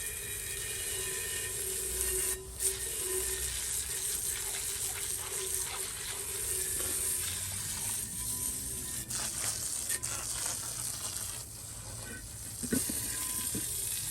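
Running water splashing steadily into a bird bath as it is rinsed and cleaned, with a few light knocks near the end.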